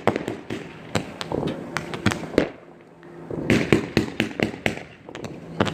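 Fireworks going off: a rapid series of sharp bangs and crackles in bunches, with short lulls between the bunches.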